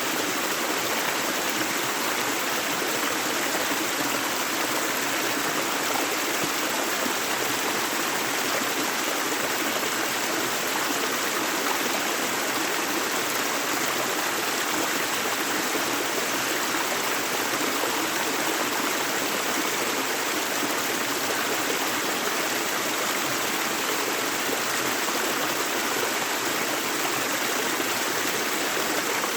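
A gentle river flowing, a steady rushing and babbling of running water.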